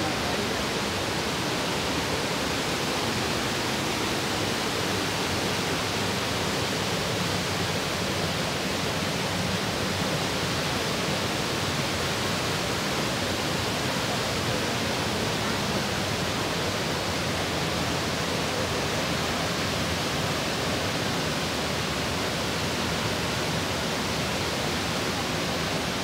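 Waterfall pouring into its plunge pool: a steady, unbroken rush of falling water.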